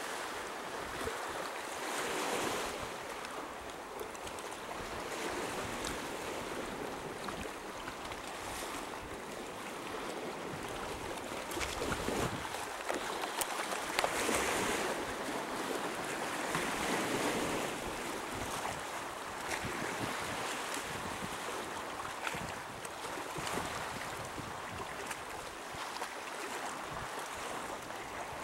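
Sea waves washing on the shore in a continuous hiss that swells and falls every few seconds.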